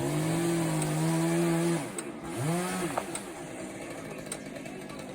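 Two-stroke chainsaw revved up to full throttle and held for almost two seconds, then let down, given a second short rev, and dropped back.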